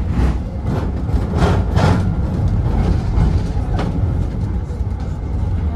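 Tram running along the track, heard from inside the car: a steady low rumble, with a few brief louder noises about one and a half to two seconds in.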